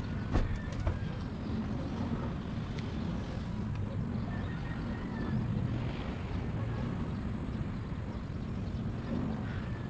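Steady low outdoor rumble, with a few sharp clicks in the first second.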